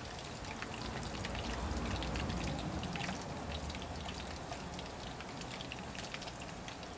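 French fries frying in hot oil in a deep fryer: a steady crackle of many small pops and sizzles.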